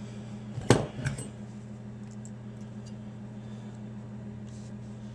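Two light clinks of hard metal or plastic parts being handled, a sharp one just under a second in and a softer one right after, over a steady low electrical hum.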